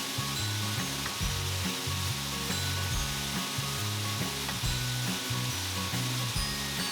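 Steady rushing hiss of a waterfall, with background music's low notes changing underneath.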